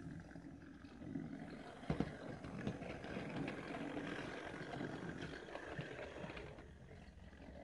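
Model railway locomotive's small electric motor running as it hauls coaches past close by, with wheels clicking on the track joints; a sharp click about two seconds in. The sound grows louder from about a second in and eases off near the end as the train moves away.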